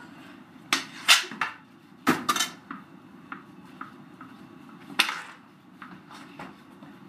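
Hockey sticks clacking and striking the floor and puck in a floor-hockey game: a quick cluster of sharp hits in the first second and a half, two more just after two seconds, and one hard hit about five seconds in.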